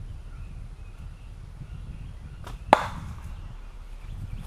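Rubber band crossbow fired once, about two and a half seconds in: a single sharp snap as the band is released.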